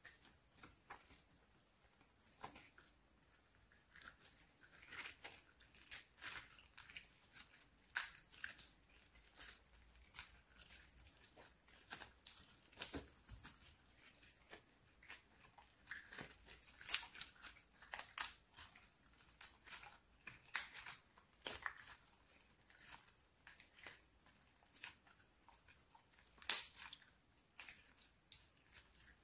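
Soft white slime being stretched, squeezed and folded by hand: an irregular run of small wet clicks, crackles and pops, with two louder pops, one about 17 seconds in and one about 26 seconds in.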